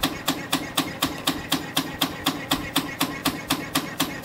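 CNC compression spring coiling machine (YHM CF-320) running at production speed, winding 1.2 mm wire: a fast, even clacking of about four strokes a second over the machine's running noise, one stroke per spring at its rate of 250 springs a minute.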